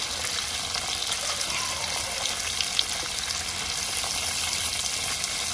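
Tiger prawns frying in hot oil in a pan: a steady sizzle with scattered small pops and crackles.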